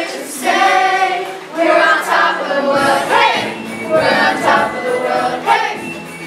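A mixed group of children and adults singing together in chorus.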